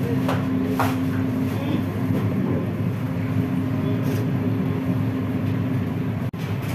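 Steady machine hum and rumble of commercial kitchen ventilation and equipment, with a steady low tone. A few brief clicks come near the start and about four seconds in, and the sound cuts out for an instant near the end.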